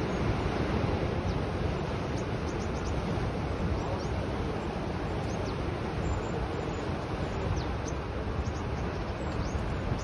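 Rough sea surf breaking continuously on the shore, a steady wash of waves with wind.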